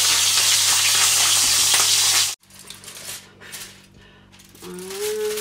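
Sea bream frying in a lidded frying pan: a loud, steady sizzle that cuts off suddenly about two seconds in. After that only quieter scattered sounds remain, with a short hum near the end.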